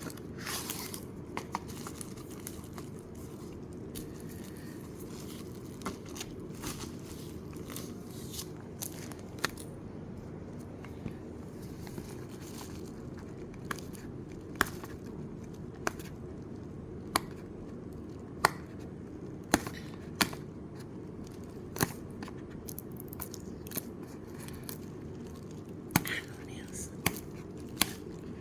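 Unboxing packaging being handled: a string of sharp, irregular clicks and snaps of plastic and card, with some crinkling and tearing, over a steady low hiss.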